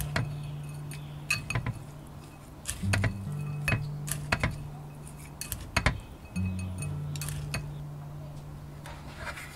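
Wooden chopsticks clinking and tapping irregularly against a bowl while noodles are tossed and mixed, over background music with a low repeating bass line.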